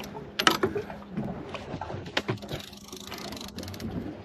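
Fishing reel being cranked, a mechanical ratcheting clicking, with several sharp knocks scattered through.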